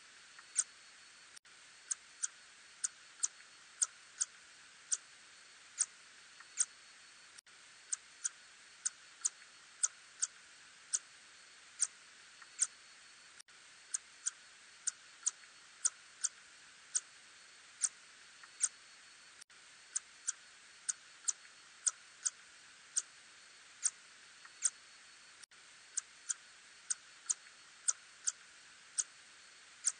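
Ussurian tube-nosed bat (Murina ussuriensis) calls, heard as sharp, brief clicks about two a second at uneven spacing over a steady hiss.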